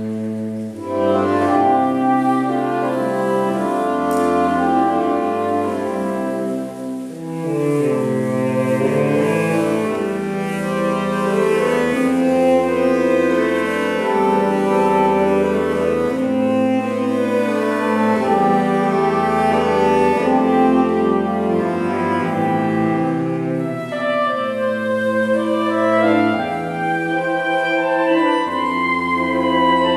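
Saxophone quartet of soprano, alto, tenor and baritone saxophones playing a piece together: sustained chords over a low bass line from the baritone saxophone, with a brief softening about seven seconds in.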